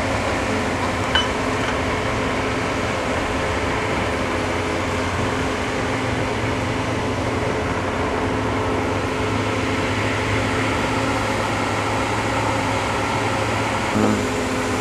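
Hydraulic excavator's diesel engine running steadily at a constant drone, its note shifting near the end.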